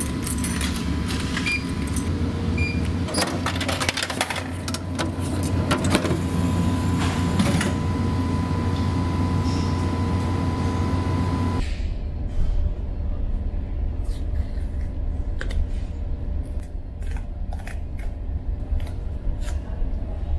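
Coins clinking into a vending machine's coin slot, with a run of sharp mechanical clicks, over the steady drone and hum of a ferry's engines and the machine. About twelve seconds in, the higher hum cuts off abruptly, leaving a lower, steadier engine drone with only occasional light clicks.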